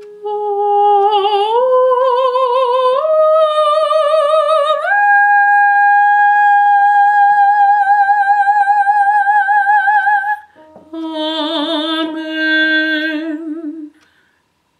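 Soprano singing with vibrato: a phrase rising in steps to a long-held top A, then after a short break a drop to the E flat below. She is practising that drop from the top A to the E flat in one breath.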